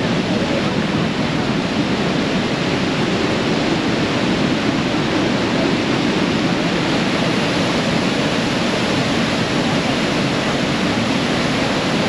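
The Manavgat Waterfall, river water pouring over a wide, low rock ledge, heard up close as a constant, even rush of water.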